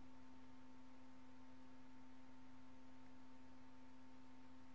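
Faint steady hum at one unchanging low pitch, with a light hiss underneath: the background hum of the recording between narration lines.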